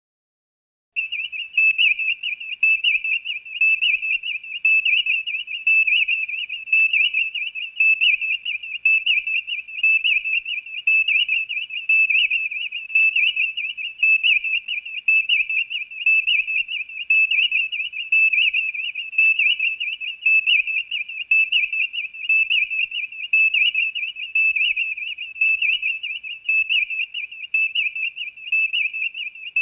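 Electronic sound effect from the original Star Trek series: a high, warbling, whistle-like tone that starts about a second in and holds one pitch, fluttering rapidly and swelling about once a second.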